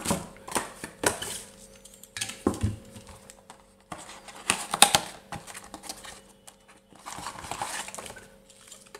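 Cardboard boxes and packaging being handled: scattered taps, clicks and short rustles, with a longer rustle a little before the end.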